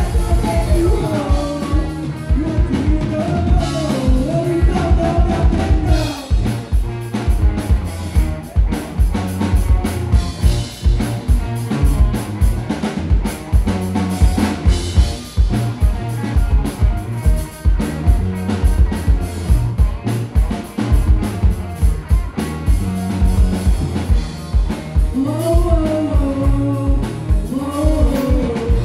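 Live rock band playing electric guitars over a fast, steady drum-kit beat. A vocalist sings for the first several seconds and again near the end, with an instrumental stretch in between.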